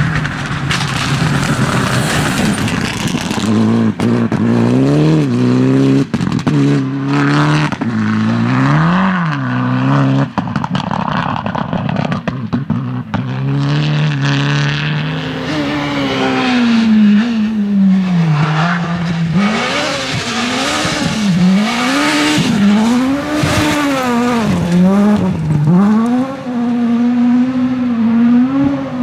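Rally car engine worked hard on a special stage, its pitch climbing and dropping again and again through gear changes and lifts between corners.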